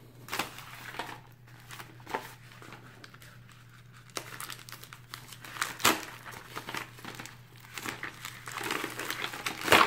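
Packaging being handled and crinkled, with irregular rustling and crackling and a few sharper crackles, the loudest about six seconds in and near the end.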